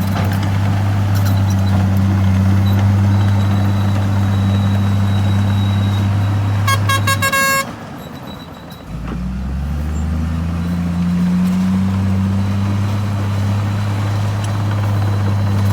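Heavy diesel engine of earthmoving machinery running steadily, with a short horn toot about six and a half seconds in. The engine sound then drops away for about a second and a half and comes back, rising in pitch before settling.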